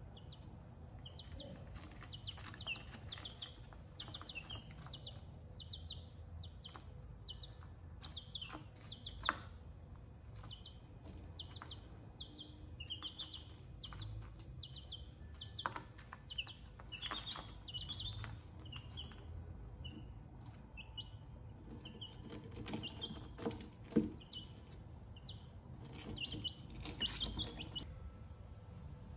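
Buff Orpington baby chicks peeping in a steady run of short, high chirps, about two a second, with a few sharp knocks in between.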